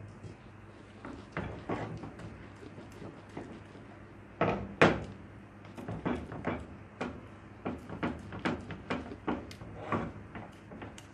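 Silicone spatula stirring a thick cocoa and condensed milk mixture in a stainless steel pan, knocking and scraping against the pan about two or three times a second. The two loudest knocks come about four and a half and five seconds in.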